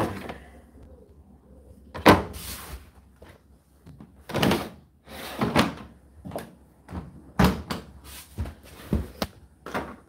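Indesit IDC8T3 condenser tumble dryer door shut with a thud about two seconds in. A series of shorter knocks and clicks follows as the machine's front is handled.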